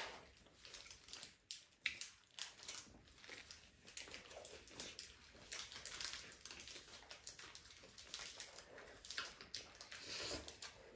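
Chewing and mouth sounds of people eating tortilla wraps, with soft crinkling of the paper wrappers: many small irregular smacks and clicks.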